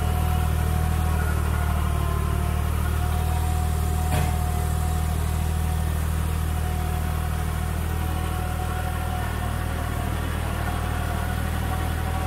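New Holland 3630 tractor's diesel engine running steadily under load at low-to-moderate revs while it pulls a super seeder through stubble, with one brief knock about four seconds in.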